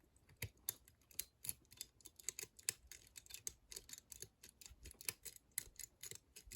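Light, irregular metallic clicks and ticks, several a second: a wire lollipop pick lifting and dropping the levers of a four-lever cabinet lock held under medium-to-hard tension.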